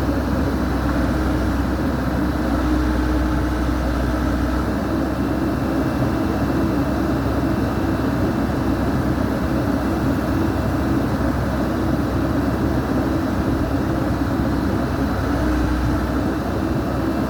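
Backhoe's diesel engine running steadily under load. Its low rumble eases about four and a half seconds in and strengthens again near the end.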